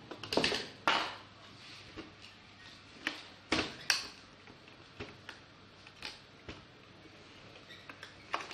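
Irregular clicks, knocks and clatter of hand tools and small plastic and metal parts being handled while a projector is taken apart, with the loudest knocks within the first second and again a little past three seconds in.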